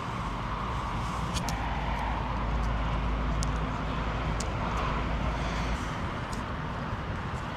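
Steady vehicle and road-traffic noise with a low rumble that stops about six seconds in, and a few faint clicks.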